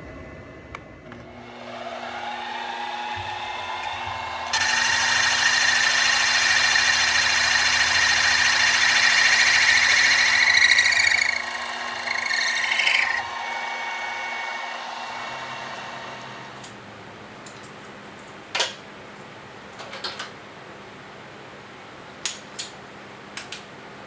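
Benchtop milling machine's spindle motor spinning up with a steady whine, then a drill cutting into aluminium plate with a loud high hiss for about seven seconds and a second, shorter cut: a peck-drilling cycle. The spindle then winds down, and a few sharp clicks follow near the end.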